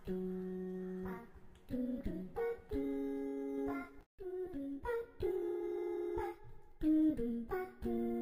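Background music: a slow melody of long held notes that slide from one pitch into the next, with a brief break about four seconds in.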